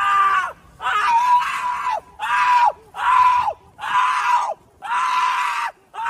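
A person screaming over and over, about one high, held scream a second, each dropping in pitch as it breaks off.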